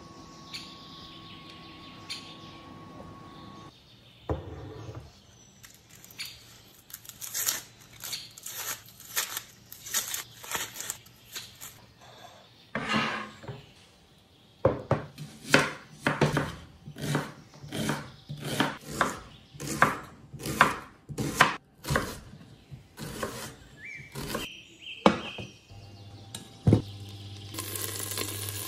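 A kitchen knife chopping onions on a wooden cutting board: sharp, even strokes at roughly two a second, in two runs with a pause between. A steady low hum sounds at the start and comes back near the end.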